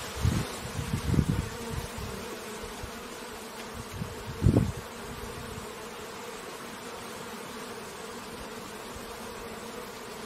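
Bees buzzing at a beehive, a steady hum. Low rumbling bumps come in the first two seconds, and a louder one about four and a half seconds in.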